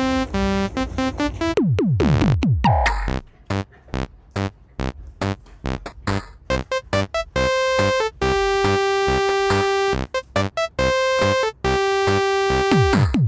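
Playful electronic background music: a bouncy synthesizer melody over a drum-machine beat, with a falling pitch-drop effect about two seconds in and again near the end.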